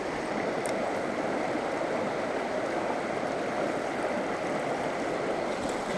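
Small mountain stream running steadily over rocks, an even rushing of flowing water.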